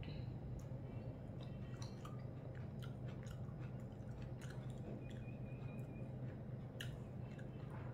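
Close-up eating sounds: rice being mixed with vegetable curry by hand on a plate, and chewing, with small clicks and soft wet squishes over a steady low hum.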